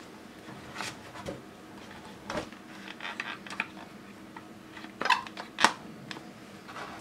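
Parts of a disassembled laser toner cartridge being handled: scattered plastic clicks and knocks, the two loudest about five seconds in, over a faint steady hum.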